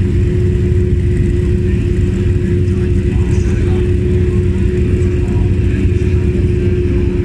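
A Porsche 935 race car's turbocharged flat-six engine idling steadily at one unchanging pitch.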